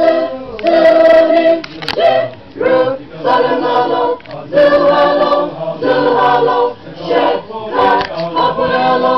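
Church choir singing a hymn in harmony, unaccompanied, in short held phrases with brief breaths between them.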